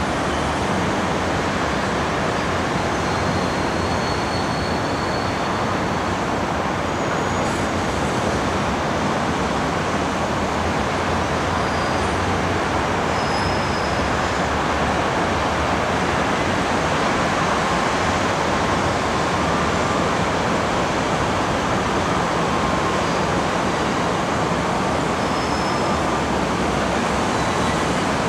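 Steady city traffic noise mixed with the running of MTR M-Train electric multiple units on the elevated Kwun Tong Line tracks. It is an even wash with no distinct passes, horns or squeals standing out.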